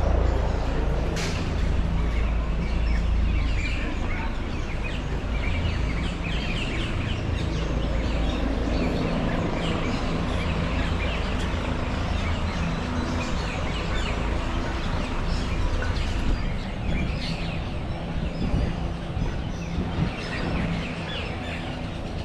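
Many birds chirping and calling at once, a busy chorus of short calls throughout, over a steady low rumble that is heavier in the first few seconds.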